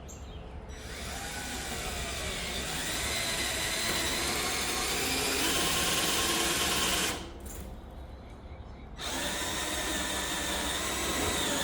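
Ryobi power drill driving a self-drilling wood-to-metal screw through a wooden board into steel, run in two long spells with a short pause between.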